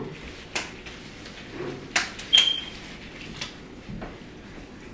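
A few sharp clicks and light knocks from objects being handled, with one short high-pitched tone about two and a half seconds in.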